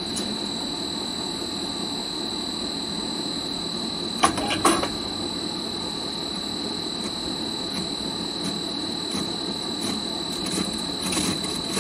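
Besta SK-520S CNC wood rotary cutting (veneer peeling) machine running: a steady machine noise with a steady high whine, and a short cluster of knocks about four seconds in.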